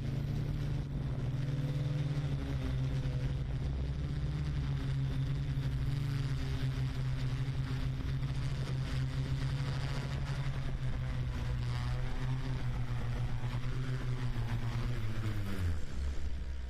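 Yuneec Q500 4K quadcopter's motors and propellers humming steadily as it hovers and comes down, the pitch dropping about fifteen seconds in as it touches down and throttles back.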